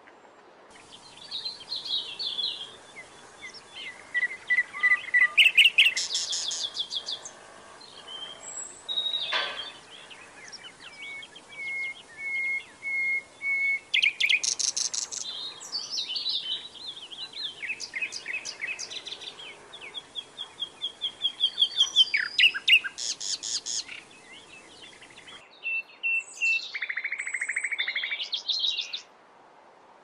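A small brown songbird singing a long, varied song: phrases of repeated whistled notes, fast trills and rattling runs, separated by short pauses.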